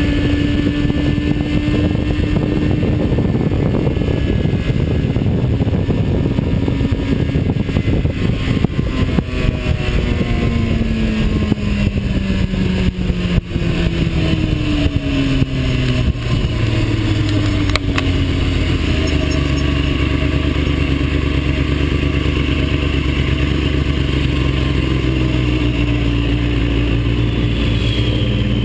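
Engine of a track-day vehicle at speed, heard from an onboard camera over heavy wind rush. The engine note holds high at first, drops in pitch over several seconds through the middle, and then settles into a low, steady drone.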